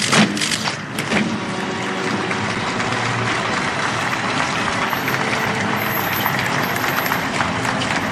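A few loud, echoing thumps about a second in, then the steady shuffling noise of a large procession walking along the street.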